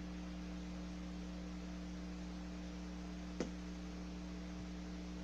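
Steady electrical mains hum with a faint hiss, broken by one short click about three and a half seconds in.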